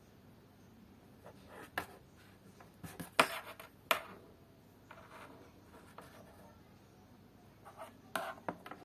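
Handling sounds: a few scattered clicks and knocks over light rubbing, the loudest about three seconds in and again a moment later.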